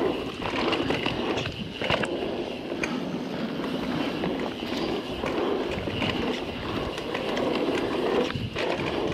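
Guerrilla Gravity MegaTrail mountain bike riding fast down a dirt singletrack: a continuous rush of tyres rolling over dirt and roots, with frequent short knocks and rattles from the bike over bumps.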